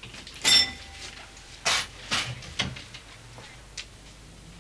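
Glass-panelled shop door being opened and shut: a loud rattling knock with a brief ring about half a second in, two more knocks a little over a second later, then a lighter click.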